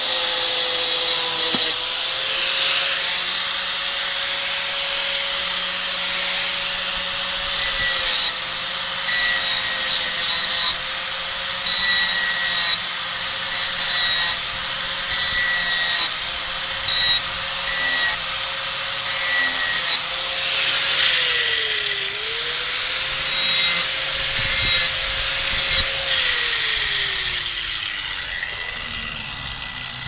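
Electric angle grinder grinding a metal bar: a steady motor whine with repeated louder grinding passes as the disc is pressed against the metal, its pitch dipping briefly under load. Near the end the grinder is switched off and its whine falls away as it spins down.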